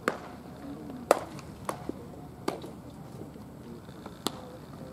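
About five sharp pops at uneven intervals, the loudest about a second in: baseballs smacking into leather gloves during catch practice.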